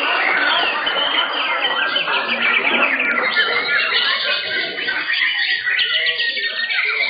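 Several white-rumped shamas (murai batu) singing at once, a dense overlapping mix of quick whistles, sweeping notes and rapid trills.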